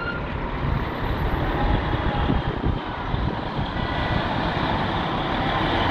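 Engines of fire trucks and other emergency vehicles running as they drive past, a steady vehicle noise.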